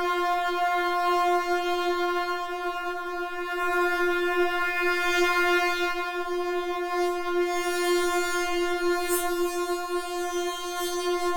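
Synthesizer "talking" line sound effect: one buzzy tone held at a steady pitch, its brightness shifting so it seems to speak. There is a short click about nine seconds in.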